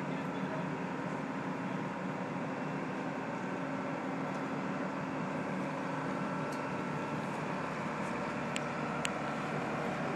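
Crane engine running steadily while it holds a cog railway car aloft. Two short sharp clicks come near the end.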